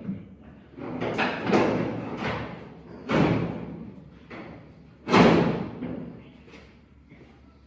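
Heavy clunks and thumps of a K10 pickup's unbolted steel hood being lifted off its hinges and handled. A cluster of knocks comes about a second in, then two louder thuds with a short ring, about three and five seconds in; the second is the loudest.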